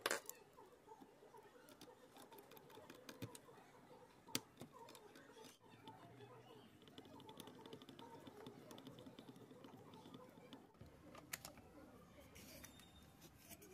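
Near silence: faint room tone with scattered small clicks, a sharper click at the very start and another about four seconds in.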